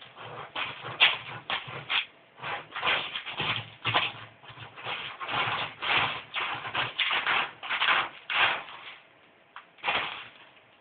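A cat digging and raking litter granules with its paws in a plastic toilet-training tray: irregular scratchy scraping strokes, several a second, dying away about nine seconds in with one last scrape near the end.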